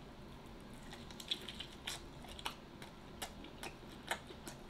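Faint, irregular wet clicks of a man chewing chicken wings, a soft mouth click every half second or so.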